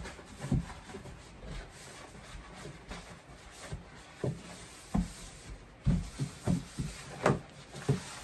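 Irregular hollow knocks and rubbing from a black plastic kitchen trash bin being handled and cleaned out by hand, about a dozen short thumps, most of them in the second half.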